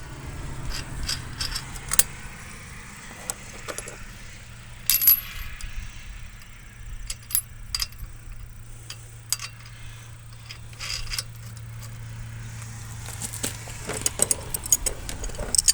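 Steel hex bolts, washers and nuts clinking and knocking against metal as they are fitted by hand to fasten a barrel vise to a hitch mount: scattered short metallic clicks, a few sharper knocks about two and five seconds in.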